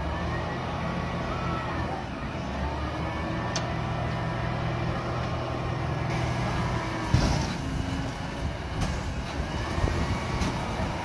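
Front-loading garbage truck running steadily, with a pitch that falls and rises as it works its lift arms. A single loud clank comes about seven seconds in.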